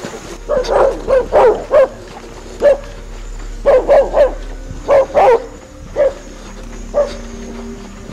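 A dog barking repeatedly, about a dozen short sharp barks coming in quick runs of two or three.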